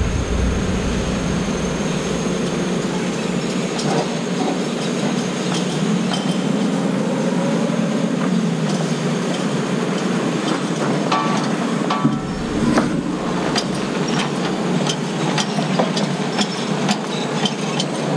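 Forklift engine running steadily while it lowers a sawmill on a pallet onto a trailer, its pitch rising and falling around the middle. A run of metal clanks and knocks comes in the second half as the load is set down.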